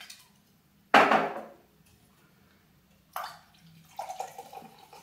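A loud knock about a second in, a short sharp hiss as a can of Pepsi is cracked open about three seconds later, then cola pouring with a fizz into a glass tankard over rum near the end.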